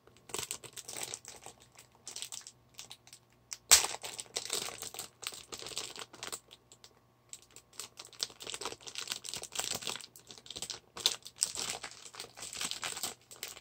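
Plastic cookie wrapper crinkling and crackling as fingers pick and pull at the sealed bag, in irregular bursts with short pauses and one sharp crack about four seconds in.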